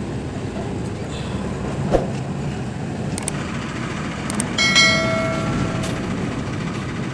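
Steady low mechanical running noise, with a sharp click about two seconds in and a few light clicks later. About five seconds in comes a short bell-like ding with overtones that fades within a second, the notification-bell sound of a subscribe-button animation.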